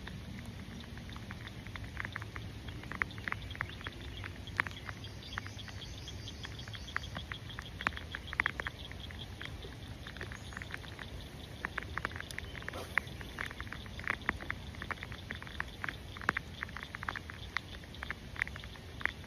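Rain: many raindrops tapping irregularly close to the microphone over a steady low hiss of rainfall.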